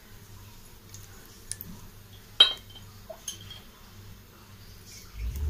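A few light clinks of a utensil against a cooking pan, the loudest about halfway through, over a faint low hum, with a soft low thump near the end.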